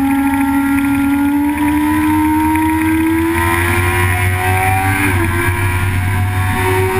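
Track-day vehicle engine running under load, its note climbing steadily in pitch with a brief dip about five seconds in, over a steady low rumble.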